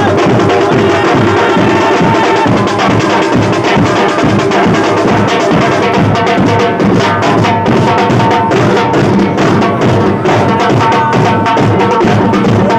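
A group of drummers beating large stick-played bass drums and snare-type drums in a loud, dense, continuous rhythm, as in Muharram procession drumming.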